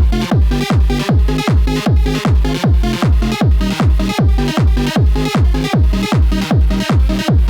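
Electronic dance music at a fast, steady four-on-the-floor beat: a heavy kick drum about twice a second, each hit sweeping down in pitch into the deep bass, with other layers filling the gaps between the kicks.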